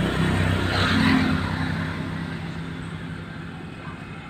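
Car engine running with a steady low hum, with a louder rush of vehicle noise that peaks about a second in and then eases off.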